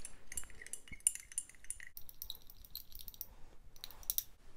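Stirring rod clinking and scraping against the inside of a small glass beaker in a rapid, uneven run of light ticks, mixing a solubilizer and sweet orange oil blend into water.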